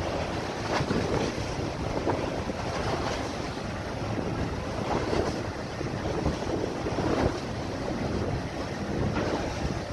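Storm wind buffeting the microphone, a rough rushing noise that swells and eases in irregular gusts.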